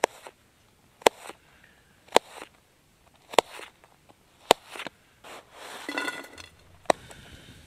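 Knife cutting potato slices into shreds on a plastic cutting board: a sharp knock of the blade on the board about once a second, each followed by a short scrape, with a longer scraping sound near the end.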